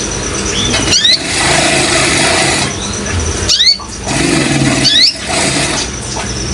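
Kolibri ninja sunbird calling in three bursts of quick, sharp, rising chirps, over the steady rush of running water.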